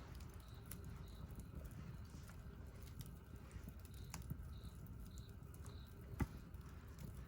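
Wood campfire burning with a low rumble of flames and scattered sharp crackles and pops, the loudest pop about six seconds in. A faint high chirp repeats about twice a second in the middle.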